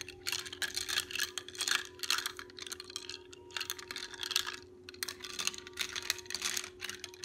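Metal spoon stirring ice cubes in tall glasses of iced tea, the ice clinking and rattling against the glass in quick irregular runs, over a faint steady hum.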